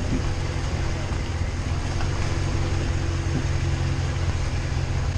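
Off-road truck engine running steadily, a low even hum with a few steady tones in it.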